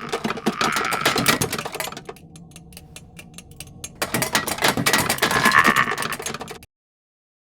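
Sound effect of several Star Wars buzz droids walking: a rapid metallic clatter of many small leg taps, busy at first, thinner for a couple of seconds in the middle, then busy again before cutting off to silence near the end.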